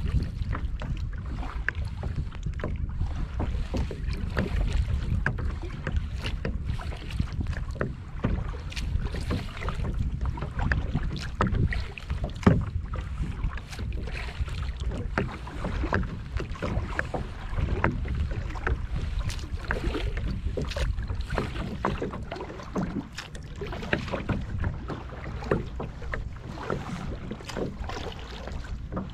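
Small waves lapping and slapping against a plastic kayak's hull in frequent small splashes, one louder slap about twelve seconds in, over a steady rumble of wind on the microphone.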